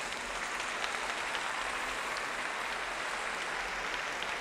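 Steady applause from the arena audience.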